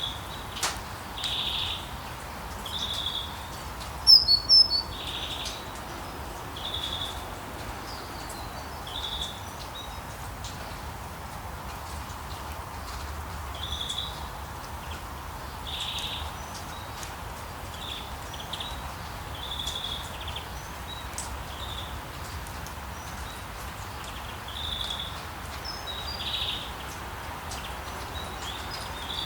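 Birds chirping in a nature ambience: short high calls repeat every second or two over a steady background hiss, with a louder cluster of higher chirps about four seconds in.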